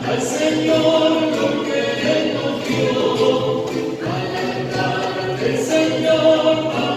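Church choir singing a hymn in several voices, with long held notes.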